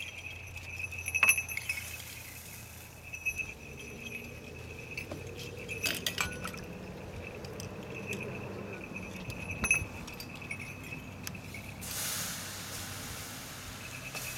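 A few sharp metallic clinks, then about twelve seconds in a spreading hiss as water is poured onto the fire burning in a metal can, quenching it into a cloud of steam.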